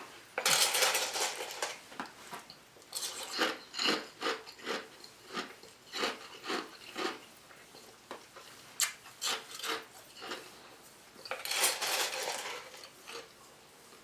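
A spoon clinking and scraping in a cup of ice: a run of short clicks, with two longer scrapes, one about half a second in and one near the end.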